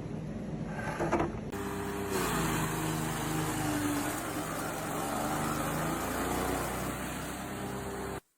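Industrial machinery running with a steady mechanical hum. About a second and a half in, it changes abruptly to a louder drone with several held tones over a hiss, and it cuts off suddenly near the end.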